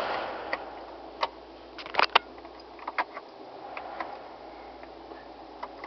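The rotary climate-control dials of a 2012 Fiat 500 click in their detents as they are turned: a scattering of sharp single ticks, the loudest about two seconds in. Under them the ventilation fan blows steadily, and its rush fades over the first second as the fan-speed dial is turned down.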